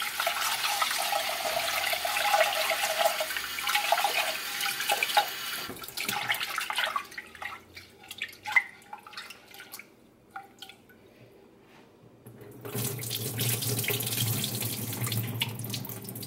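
Kitchen tap running into a saucepan of rinsed rice for about five seconds, then stopping. Next come a few scattered small knocks as the pot is handled. About 13 seconds in, the cloudy rinse water is poured off through the pot's strainer and splashes steadily into a stainless steel sink.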